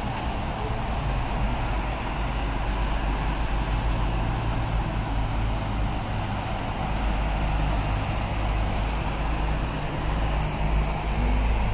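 Steady road traffic noise from cars and trucks on a busy multi-lane road, heard from above as a continuous rumbling hum.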